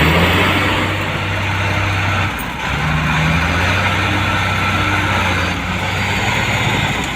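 Heavy diesel engine running steadily under load, its note dipping and shifting about two and a half seconds in.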